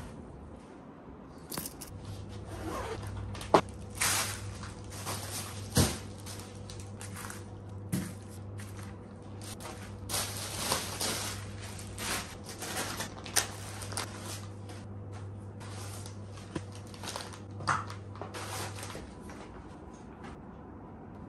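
Groceries being unpacked by hand: plastic shopping bags rustling and crinkling, with a scatter of sharp knocks as items are set down on a glass tabletop. A low steady hum runs underneath, starting about two seconds in and stopping near the end.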